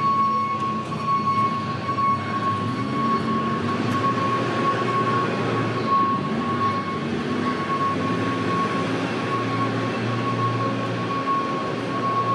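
A steady high-pitched whine that holds one pitch throughout, over a low mechanical hum and rumble: machinery running.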